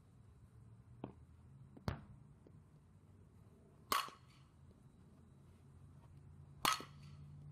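Softball bat hitting the ball twice in batting practice, loud sharp cracks with a brief ring, about four seconds in and again near the end. Two smaller knocks come about one and two seconds in.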